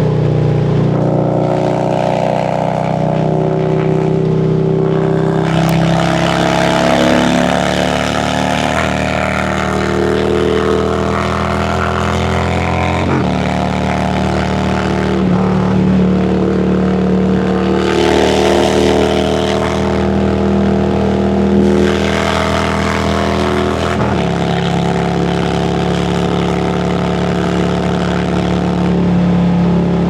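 2017 Harley-Davidson Road Glide Special's Milwaukee-Eight V-twin running at highway speed, mixed with wind rush. Its note changes abruptly about a third of the way in and again near the end.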